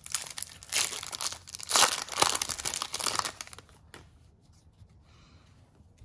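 Foil wrapper of a 2020 Topps Series 1 baseball card pack being torn open and crinkled, crackling with several loud rips, then stopping about three and a half seconds in.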